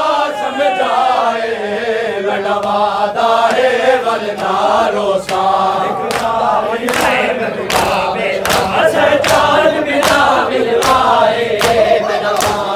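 A group of men chants a Punjabi noha (mourning lament) together. About halfway in, a steady rhythm of sharp chest-beating slaps (matam) joins the chant, roughly one and a half strokes a second.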